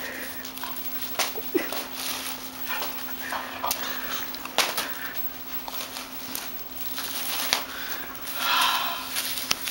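A kitten attacking a plastic-wrapped four-pack of toilet paper, knocking it over and shoving it across a tile floor in scattered sharp knocks. Near the end there is a short whining cry.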